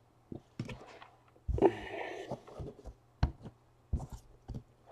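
Panini Elite football trading cards being flipped and slid against each other in the hands: a few sharp clicks and snaps of card edges, with one longer rustling slide about one and a half seconds in.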